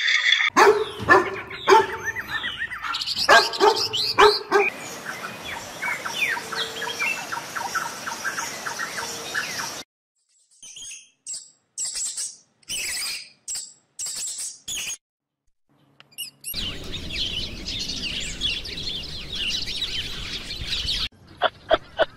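Outdoor wildlife sound from several short clips in a row: birds chirping and calling. The sound breaks off into brief silent gaps partway through, and a quick run of sharp clicks comes in at the very end.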